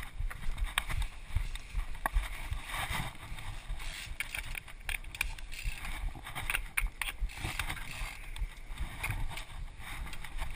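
Mountain bike riding down a dirt singletrack: tyres rolling over dirt and roots, with the bike rattling and frequent sharp clicks and knocks, over a low rumble of wind on the microphone.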